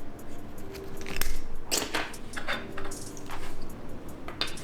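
Small plastic packaging being handled and opened, with irregular crinkling and rustling and a few light clicks.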